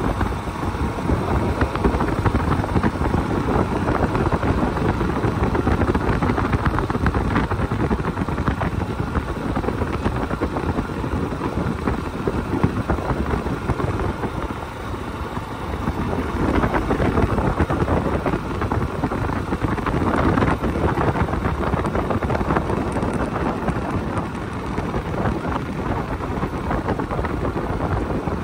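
Yamaha YBR motorcycle's single-cylinder engine running under way, mixed with wind rushing over the microphone. It goes briefly quieter about halfway through, then picks up again.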